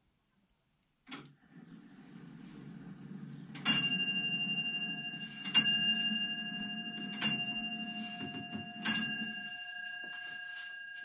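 Longcase (grandfather) clock striking four times on its bell, the strokes spaced a little under two seconds apart, each left ringing and fading. A click about a second in sets off a low whirr of the striking mechanism, which runs under the strokes and stops just after the last one.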